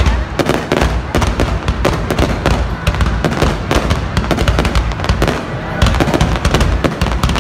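Fireworks display: aerial shells bursting one after another in a continuous barrage of bangs and crackles, several a second.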